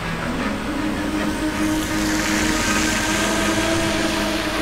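Audi A6 C6's 4.2-litre V8 idling steadily through its quad exhausts.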